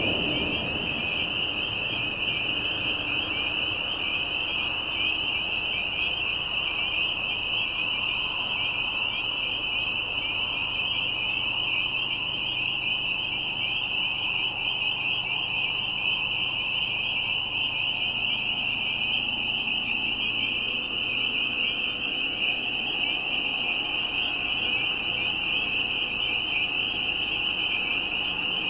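Spring peepers calling in a dense, unbroken chorus of high-pitched peeps that overlap into a steady shrill wall of sound.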